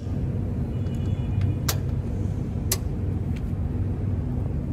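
Sharp clicks of an electric reach truck's start-up controls (key switch, emergency-stop knob and rocker switch) being worked, the two loudest about a second apart, over a steady low rumble.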